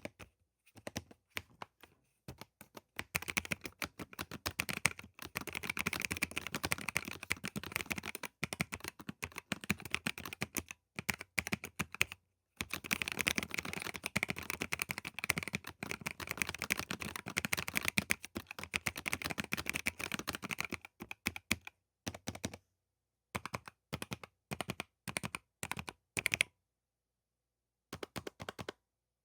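Steady typing on an EPOMAKER LUMA100 low-profile mechanical keyboard, its switches clacking in dense runs of keystrokes with brief pauses between runs.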